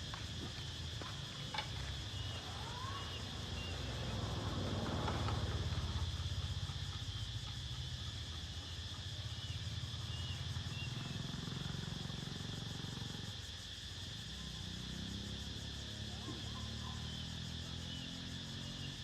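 Steady chirring of insects such as crickets or cicadas over a motor vehicle's engine, which swells as it passes about five seconds in, with engine hum again near the end.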